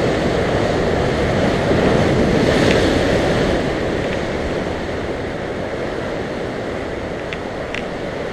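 Sea surf breaking and washing over shore rocks, with wind buffeting the microphone, a little louder about two to three seconds in.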